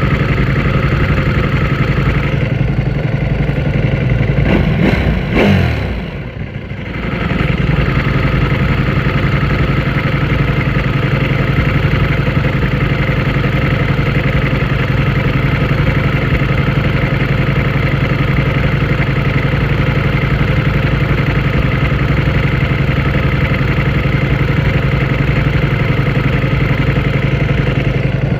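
Ducati Panigale V4S motorcycle's V4 engine running steadily under way. About five seconds in, the revs drop with a falling pitch and the sound dips briefly, then the engine settles back to a steady note.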